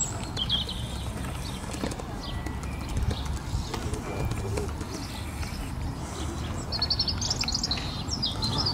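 Small songbirds chirping over a steady low wind rumble on the microphone, with a quick run of chirps from about seven seconds in.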